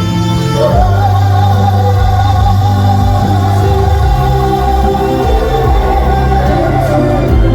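Slow trot ballad with live backing music: a long melody note held with a slight waver over a steady bass, changing to a new note near the end.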